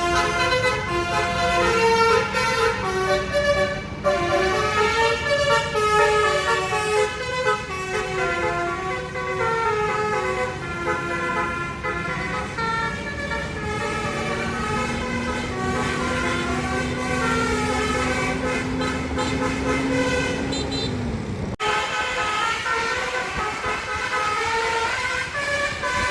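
Bus 'telolet basuri' multi-tone air horns playing stepping melodic tunes over a low bus engine rumble. The tunes break off suddenly a few seconds before the end and then start again.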